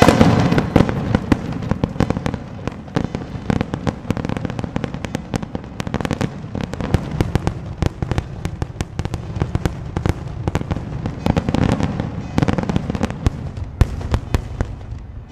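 Daytime aerial fireworks: a dense, rapid barrage of shell bursts, several bangs a second, loudest right at the start.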